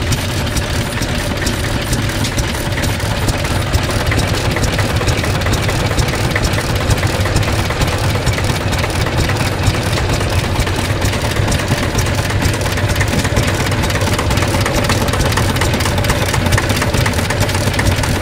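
Kubota-built Hatz E90L air-cooled single-cylinder diesel (667 cc) in a circa-1962 Kubota L12 tractor, idling steadily at an even, unchanging speed.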